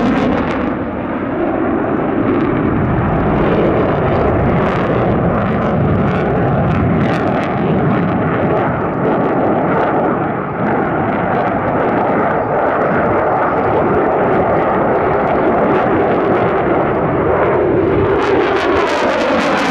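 Display aircraft's engines giving a loud, steady rush, with a sweeping, phasing whoosh near the start and again near the end as it passes close.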